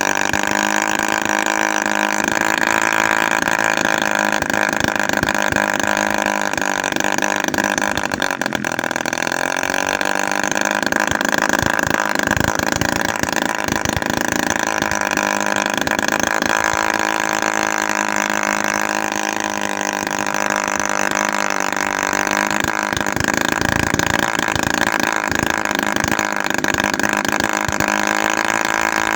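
Homemade 7 cc two-stroke engine, built from a used refrigerator compressor, running steadily. About eight seconds in, its pitch dips briefly and then recovers.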